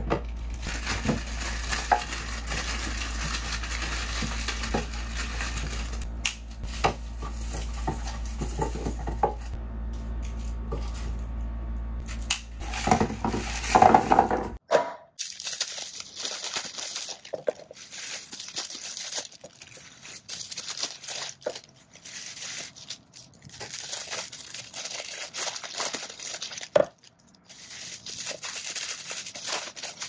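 Hands handling produce. Potatoes are set down and knock into a wooden crate, then plastic wrappers crinkle and tear as they are peeled off oranges, and the fruit clinks into a glass dish. A low steady hum runs under the first half and stops suddenly about halfway.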